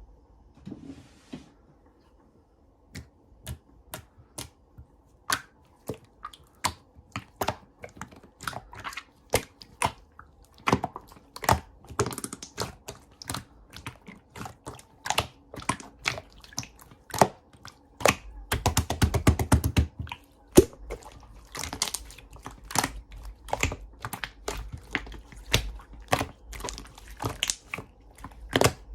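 Close, irregular clicks and taps of small objects being handled, with a rasping buzz lasting about two seconds about two-thirds of the way in.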